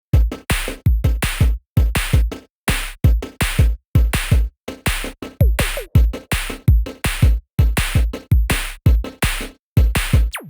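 Electronic music with a hard drum-machine beat: deep kick-drum thumps and sharp hits in quick succession, broken by short silent gaps.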